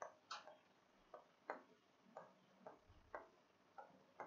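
Faint, irregular clicks of a pen tip tapping and ticking against the glass of an interactive touch-screen whiteboard while writing, about ten in four seconds.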